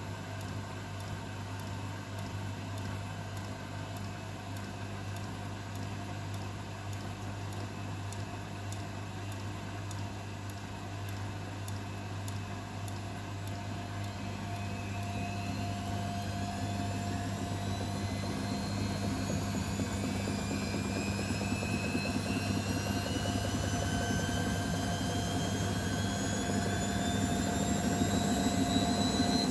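Beko WML 51211 washing machine running, with a steady low hum throughout. About halfway through, the motor's whine starts rising steadily in pitch and getting louder as the drum speeds up into a spin.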